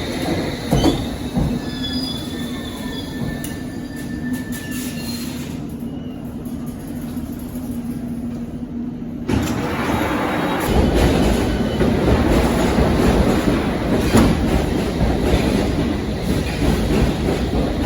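Train moving at a station platform: a steady low hum with faint, thin wheel squeal. About nine seconds in, louder rumbling running noise takes over and grows heavier.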